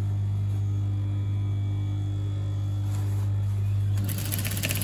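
Juki industrial sewing machine: a steady electric hum, then about a second of rapid, even stitching near the end as the needle runs through the corduroy hem.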